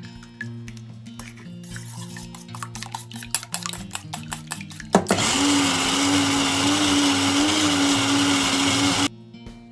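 Countertop blender motor running loud and steady for about four seconds while blending liquid egg mixture, then cutting off abruptly. Before it starts, rapid clicking and clinking against a stainless steel bowl as the eggs are worked, and a sharp knock just before the motor comes on.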